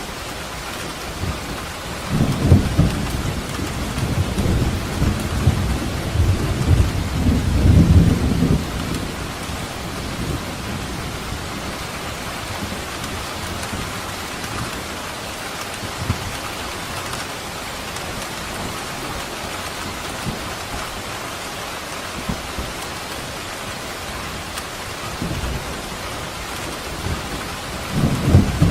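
Steady rain falling, with a low rumble of thunder rolling for several seconds about two seconds in and another rumble starting near the end.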